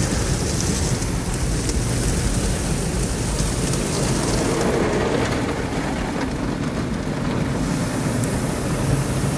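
Automatic car wash spraying water and brushing over a car, heard from inside the cabin: a steady rush of water against the glass and body.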